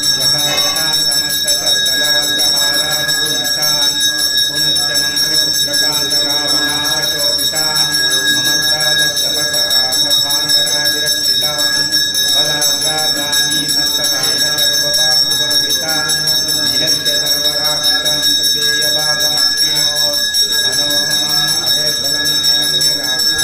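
Temple bell ringing continuously, its tones holding steady without a break, with voices chanting underneath.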